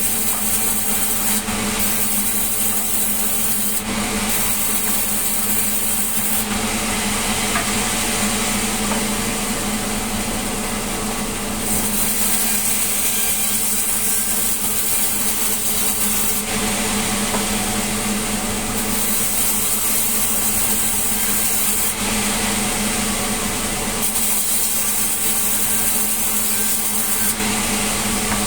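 Sawmill saw running steadily while cutting wood, with a constant low hum from its drive. The high hiss of the cut grows and fades every few seconds.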